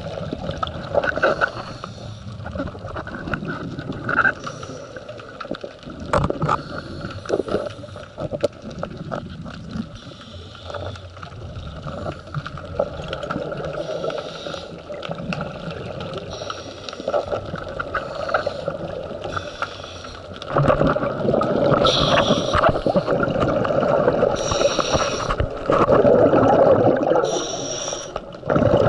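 Underwater scuba-dive sound heard through a camera housing: a diver's regulator breathing, with gurgling bursts of exhaled bubbles every few seconds from about two-thirds of the way in. Scattered clicks and knocks come earlier.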